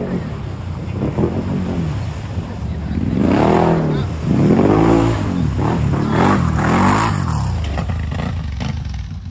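ATV engine revved hard over and over, its pitch swelling up and falling back several times as the machine works through a mud hole.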